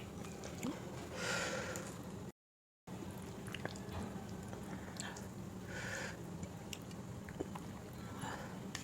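Close-up eating sounds: wet chewing and small mouth clicks from eating dal, rice and vegetable curry, with two short breathy sounds. There is a low steady hum underneath, and the audio cuts out completely for about half a second around two seconds in.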